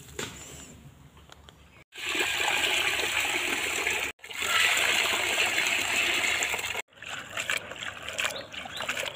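Water poured into a metal bowl of cut taro stolons, a loud steady rush that breaks off abruptly twice. It is followed by a hand swishing and rubbing the stems in the water with small splashes and clicks.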